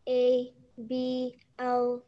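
A voice over a video call spelling out a word letter by letter, with three drawn-out letters each held on one flat pitch and short pauses between them.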